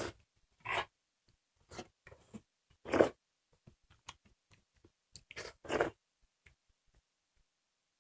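People eating a home meal of soup and curry, with chewing and mouth sounds close to the microphone: a series of short, separate sounds, the loudest about three seconds in.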